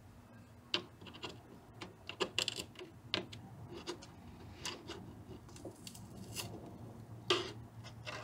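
Screwdriver scraping and prying hardened silicone adhesive off the electrolytic capacitors of a vintage Fender amp's doghouse board: a string of irregular scrapes and small clicks, with a louder scrape about seven seconds in.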